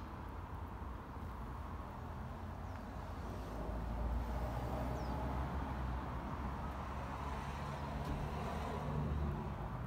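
Steady low outdoor rumble, growing a little louder about four seconds in.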